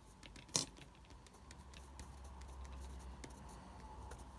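Faint dabbing and tapping of a paintbrush on watercolour paper, with one sharper click about half a second in.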